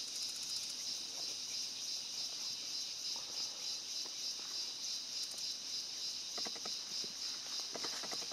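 Steady, high-pitched insect chorus of forest insects, its loudness rising and falling slightly in quick pulses. There are two short trains of rapid clicks, about six and eight seconds in.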